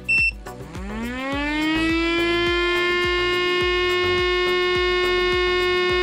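Miniature 3D-printed Federal Signal STL-10 siren, its rotor and stator without horns and driven by a small 130 DC motor on USB power, winding up in pitch over about a second and a half, then holding a steady siren tone. It sounds a bit underpowered, which the builder puts down to a possible lack of amps. A short beep sounds right at the start.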